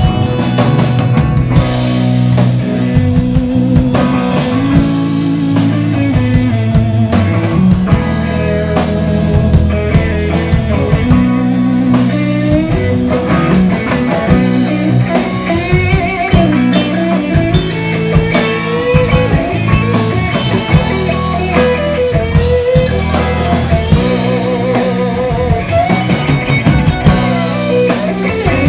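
Rock band playing live on electric guitars, bass guitar and drum kit, with a wavering guitar melody over a steady drum beat.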